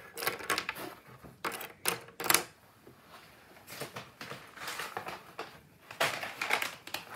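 Rustling and light clattering of markers and paper being handled on a desk, in a few short bursts with a quieter stretch in the middle.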